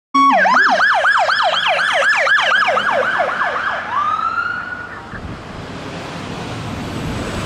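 Emergency vehicle's electronic siren in fast yelp, about four sweeps a second, changing about four seconds in to one slower rising wail that fades out, leaving the low noise of a vehicle on the road.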